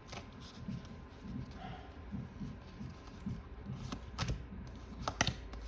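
Tarot cards being handled and shuffled: soft rustling with a few sharp clicks about four and five seconds in.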